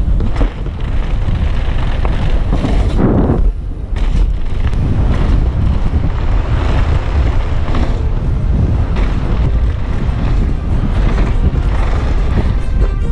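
Wind rushing over the microphone of a mountain bike's action camera, over the tyres rolling on a loose gravel trail and the bike rattling, with frequent small knocks as it rides down at speed.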